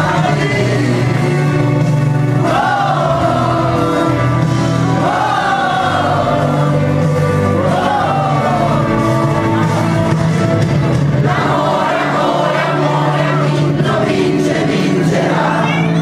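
A group of young voices singing together in unison, over instrumental accompaniment with steady held bass notes.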